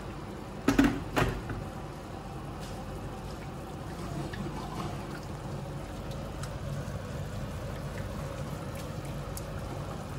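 Two sharp knocks about a second in, then a wire whisk stirring a thick, wet sauce in a metal frying pan: a steady liquid swishing.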